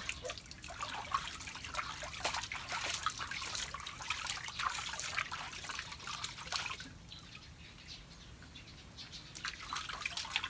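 Water splashing and dripping in a basin as hands scoop and rub water over a puppy during a bath. Frequent small splashes, which thin out for a couple of seconds about seven seconds in and pick up again near the end.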